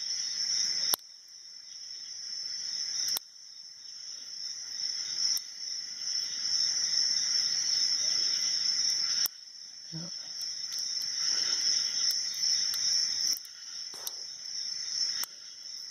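Steady high-pitched chirring of crickets that drops back abruptly a few times, with a few faint clicks from the hook pick working the padlock's pins.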